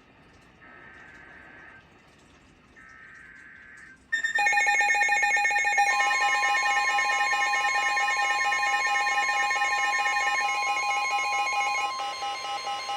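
Emergency Alert System signal on NOAA Weather Radio, heralding a severe thunderstorm warning. First come three faint, short buzzing data bursts, the SAME header. About four seconds in, a loud electronic alert of several tones starts suddenly. About two seconds later a steady single tone joins it, the weather radio's warning alarm tone.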